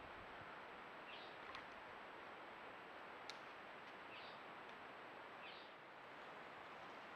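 Quiet woodland ambience with a steady hiss. A bird gives three short, high chirps that fall in pitch, about a second, four seconds and five and a half seconds in, and there is one sharp click about three seconds in.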